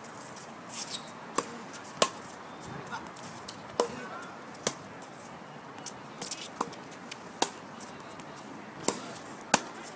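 Tennis rally: sharp pops of the ball off racket strings and off a hard court, irregularly spaced about a second apart, some louder and closer than others.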